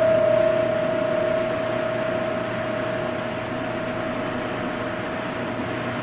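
A single held tone fading slowly over a steady hiss.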